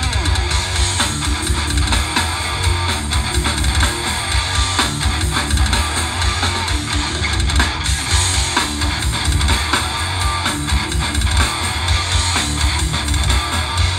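A live metal band playing loudly: distorted electric guitar, bass guitar and a drum kit, with heavy bass and dense drumming throughout.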